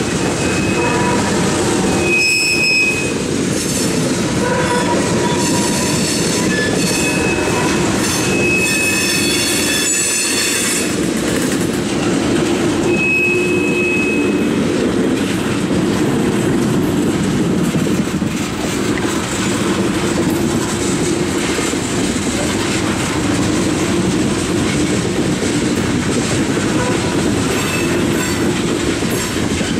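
Loaded CSX coal train's open-top coal cars rolling past with a steady, loud rumble of steel wheels on rail. Short high-pitched wheel squeals come several times in the first half.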